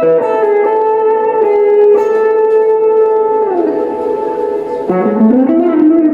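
Telecaster-style electric guitar played through a Boss ME-80 multi-effects unit with distortion and ambience, holding long sustained notes. The pitch slides down about three and a half seconds in, and a low note bends upward near the end.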